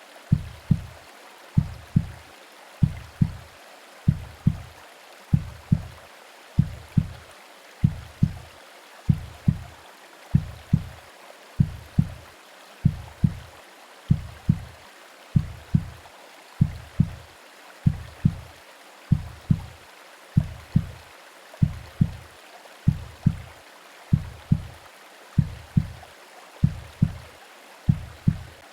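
Womb-style heartbeat sound, a steady double thump repeating about four times every five seconds. It plays over a faint, even hiss of white noise.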